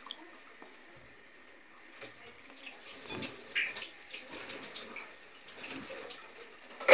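Soft wet squelches and splashes as raw chicken pieces are pushed by hand into a bowl of buttermilk and egg, in short irregular bursts starting about two seconds in, with a sharp knock near the end.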